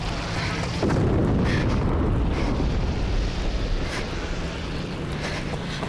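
A deep explosion about a second in, its rumble dying away slowly over the next few seconds, over a steady low rumble.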